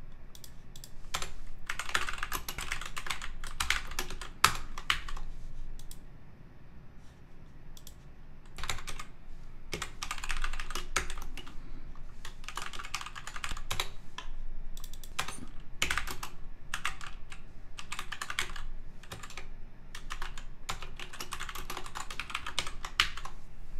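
Typing on a computer keyboard: bursts of quick keystrokes with short gaps, and a pause of about two seconds a quarter of the way in.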